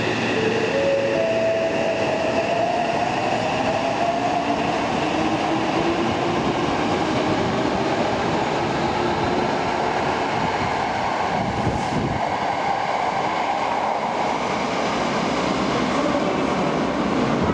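Yokohama Municipal Subway 3000S-type train pulling out of an underground station: its traction motors whine in rising tones as it accelerates, then steady wheel and running noise follows, with a single low thump about twelve seconds in.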